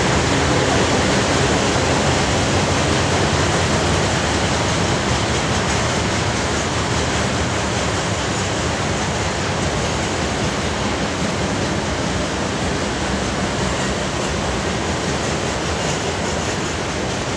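A freight train of loaded open hopper cars rolling past, with a steady rush and rumble of steel wheels on rail that eases slowly.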